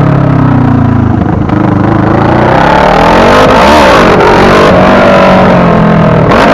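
Motorcycle engine running under way, its pitch climbing and dropping as it speeds up and slows, over steady wind and road noise.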